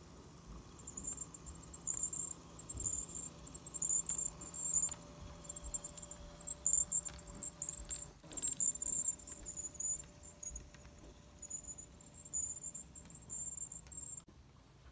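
A model diesel locomotive with a sound decoder running past on the track. Its sound is a steady low engine hum with a steadier mid-pitched tone, under irregular high-pitched chirps that stop suddenly near the end.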